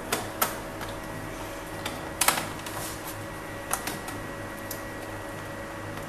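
Sharp plastic clicks and snaps from an eMachines E732Z laptop's case as a thin screwdriver pries along the seam of its panel, working the clips loose. There are about five clicks, the loudest a little over two seconds in.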